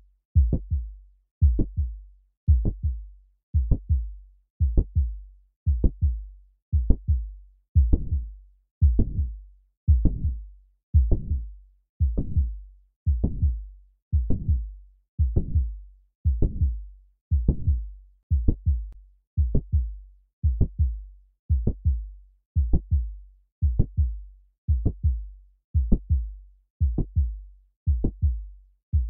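Recorded heart sounds of mitral valve prolapse, heard through a stethoscope: a steady, regular beat of short low thuds. The narration places a dry click in mid-systole, after the first heart sound.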